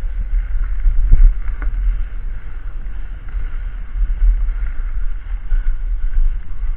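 Mountain bike rolling over a dirt trail: a steady low rumble with a couple of knocks from bumps about a second in.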